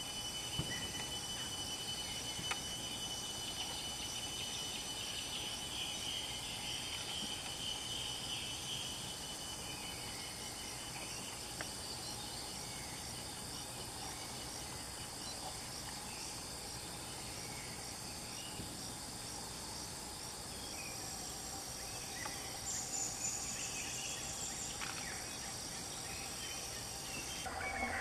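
Outdoor ambience of insects, likely crickets: a steady high-pitched drone with a faint regular ticking about twice a second. A small bird chirps a few times, mostly early on.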